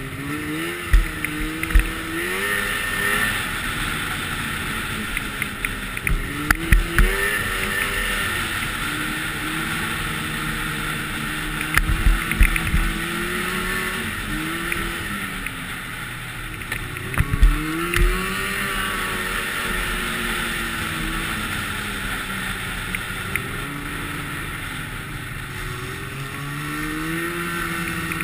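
Snowmobile engine running along a trail, its pitch rising and falling again and again with the throttle, under steady wind noise on the microphone. A few times heavy jolting thumps break in.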